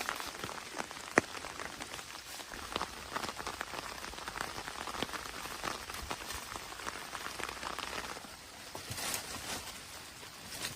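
Rain falling steadily, with many individual drops pattering and tapping on a surface and one sharper tap about a second in.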